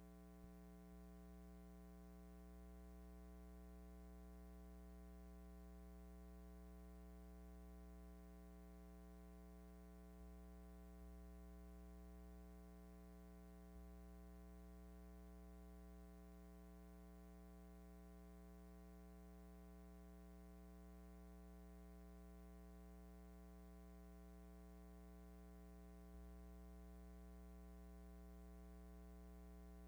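Near silence: only a faint, steady electrical hum with no other sound.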